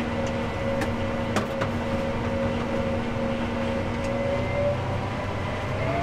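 John Deere tractor's engine running steadily, heard from inside its cab, a low hum with a steady tone that rises slightly and fades about three-quarters through. A couple of light clicks come in the first second and a half.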